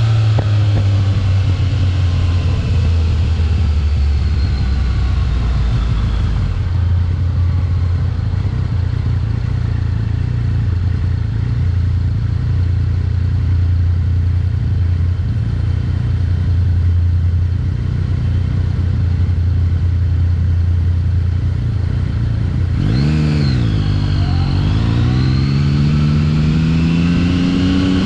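Yamaha XSR900 motorcycle's inline-three engine running on the move. The revs ease down over the first few seconds and hold steady. Near the end they dip and then climb as the bike accelerates.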